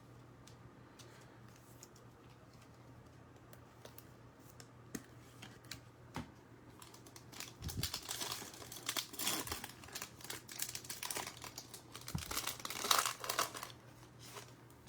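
Foil wrapper of a trading-card pack being torn open and crinkled: a few faint clicks and light handling at first, then several seconds of dense crinkling and tearing in the second half.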